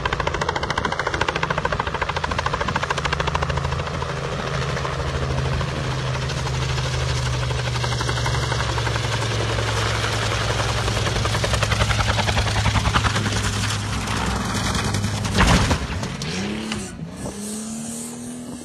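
Helicopter rotor blades chopping steadily as the helicopter descends to land, then a single loud crash about fifteen seconds in as it drops onto the ground and rolls onto its side. After the impact the engine and rotor sound wavers in pitch, then settles into a rising whine.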